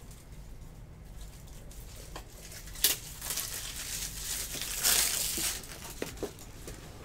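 A plastic-wrapped pack being torn open: a sharp snap just before the midpoint, then a few seconds of crinkling wrapper that peaks and dies down near the end.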